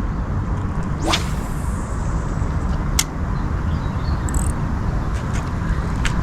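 A fishing rod swished once through the air about a second in, a quick falling whoosh. Two sharp ticks follow later, over a steady low rumble.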